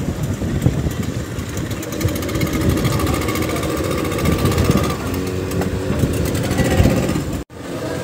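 Speedboat outboard motors running, a rough, rapidly pulsing low rumble. The sound drops out for an instant near the end.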